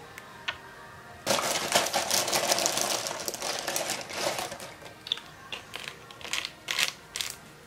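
Plastic makeup bottles handled while liquid foundation is transferred from one to the other: a loud burst of rapid clattering and rattling for about three seconds, then scattered clicks and taps of the bottles and caps.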